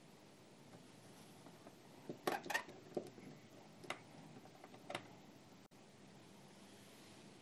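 Light clicks and taps of multimeter test probes against screw terminal blocks. There is a quick cluster about two seconds in, then single clicks roughly once a second, over a faint steady background hiss.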